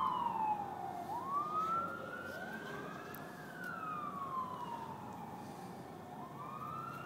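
Emergency vehicle siren sounding a slow wail, its pitch sliding down and up: falling for about the first second, rising to a peak about three seconds in, falling again and starting to rise near the end.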